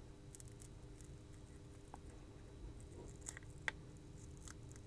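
Faint crackling and small ticks as RF shielding tape is peeled by hand off a flex cable, with one sharper tick near the end.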